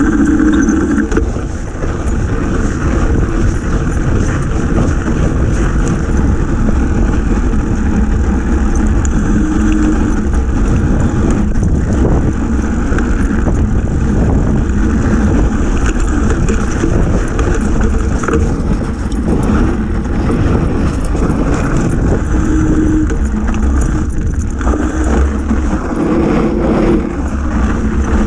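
Fat bike riding downhill on a snowy trail: the knobby front tyre rolling over packed snow, with a steady low rumble of wind on the bike-mounted camera's microphone.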